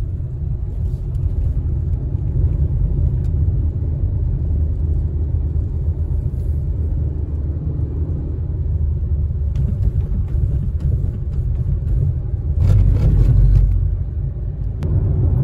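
Steady low rumble of road and engine noise inside a moving car's cabin. It swells briefly for about a second near the end.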